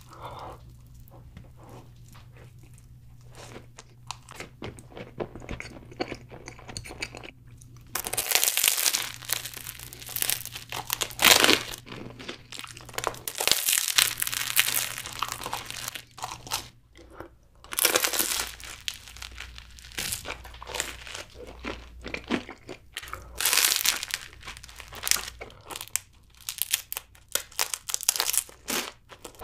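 A person chewing and crunching cream-filled pastries and bread, soft and faint for the first several seconds, then loud crisp crunches in irregular bursts from about eight seconds in.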